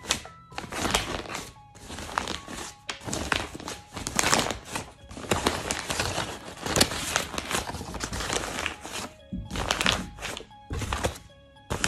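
A sheet of paper being crumpled and rustled by hand, in irregular bursts of crinkling with short pauses between them.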